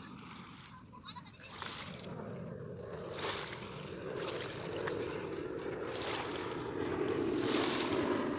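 Airplane flying over, its engine drone growing steadily louder from about two seconds in.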